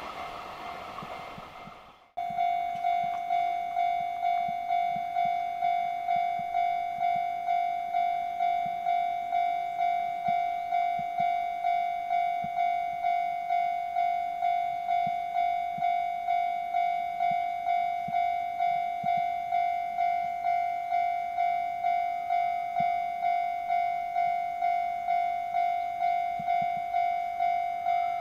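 The rolling noise of a freight train's wagons passing and fading, cut off after about two seconds. Then a level crossing warning bell rings steadily: one high tone pulsing evenly about one and a half times a second, the signal that a train is approaching.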